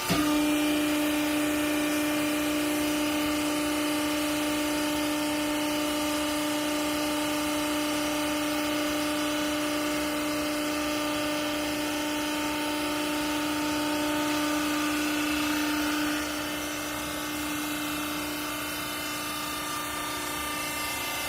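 Hydraulic pump and motor of a vertical clothing baler running: a steady whine that starts abruptly and cuts out about three-quarters of the way through, leaving a quieter steady machine hum.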